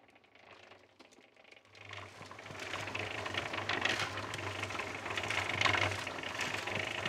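Small electric concrete mixer running, its drum churning water and leftover concrete with a steady hum and rough sloshing, starting about two seconds in. A wooden screed board scrapes over the wet concrete at the same time.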